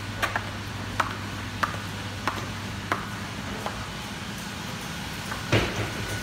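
Stiletto heels clicking on a tiled floor in a steady walking rhythm, a sharp click about every two-thirds of a second, over a steady low hum. About five and a half seconds in there is a louder clatter.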